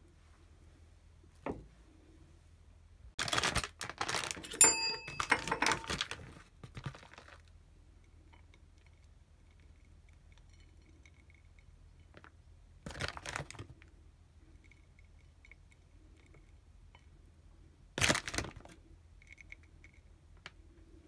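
Intermittent handling sounds: a few seconds of rustling and clatter with one ringing clink, then two short bursts of scraping and tapping several seconds apart, from a metal spoon worked against a plate while dusting cocoa powder over chocolate balls.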